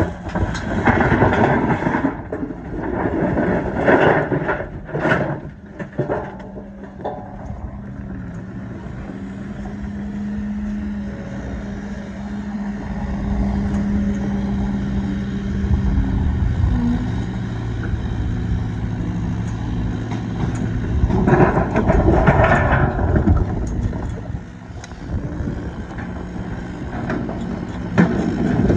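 A diesel engine of heavy construction equipment running steadily, with a burst of sharp knocks and clatter in the first few seconds, a louder noisy stretch about three-quarters through, and a single knock near the end.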